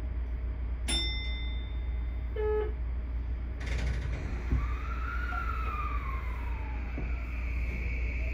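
Subway train's electric traction motors pulling away in a tunnel: a steady low rumble under a motor whine that rises and then falls in pitch from about three and a half seconds in, with a higher tone climbing near the end. A single ding about a second in, followed by a short run of stepped beeps.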